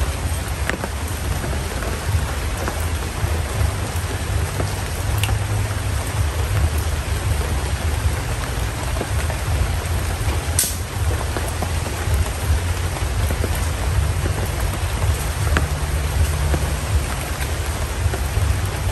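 Steady rain falling, with a deep rumble underneath and a single sharp tick about halfway through.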